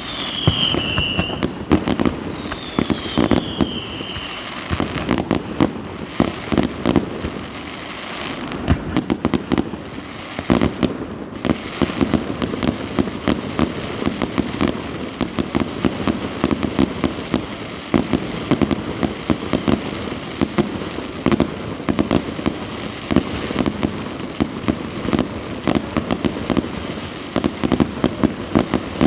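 A fireworks display: a dense, continuous rattle of cracks and bangs, several a second, with two short falling whistles near the start.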